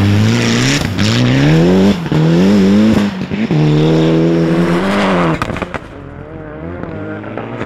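Rally car engine revving hard under acceleration on a snow stage, its pitch climbing through three quick upshifts and then holding high. About five seconds in it drops away to a quieter, more distant engine note that wavers up and down.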